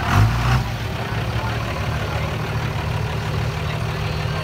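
Diesel engine of a second-generation Dodge Ram pickup idling with a steady low drone, a short louder burst right at the start.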